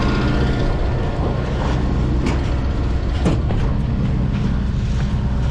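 A vehicle engine running steadily, with a few faint knocks about two and three seconds in.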